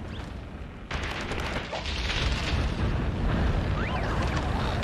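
Cartoon tornado sound effect: a strong rushing wind with a deep rumble that surges suddenly about a second in, with a few short whistling glides near the end.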